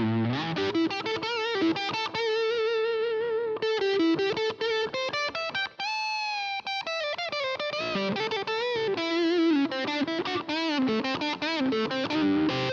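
Harley Benton TE-20 Telecaster-style electric guitar, freshly set up, played through an amp: fast single-note lead lines with vibrato, and a sustained bent note about six seconds in.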